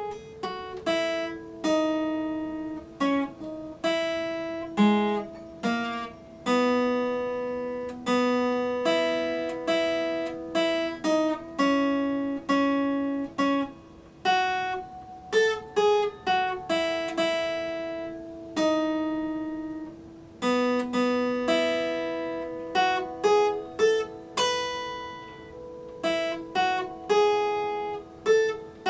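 Epiphone acoustic guitar being fingerpicked: a slow melody of single plucked notes and chords, each left to ring and fade into the next.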